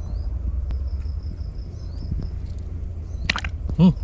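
Outdoor field ambience: a steady low rumble under a high, rapidly repeating insect chirp. Near the end comes a sudden short noisy burst, followed by a brief, loud pitched call.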